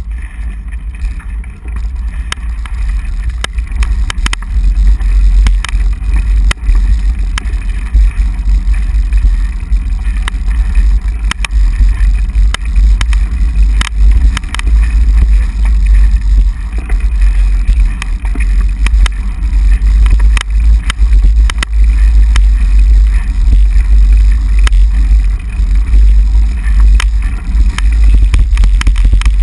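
Loud wind buffeting and road rumble on a handlebar-mounted bicycle camera's microphone as the bike rolls over wet pavement, with frequent small rattling knocks from the mount; it grows louder a few seconds in.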